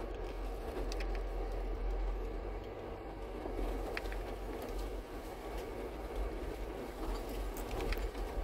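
Four-wheel-drive vehicle crawling over a rocky trail, heard from inside the cabin: a steady low engine and tyre rumble, with scattered small clicks and rattles from stones under the wheels and the body.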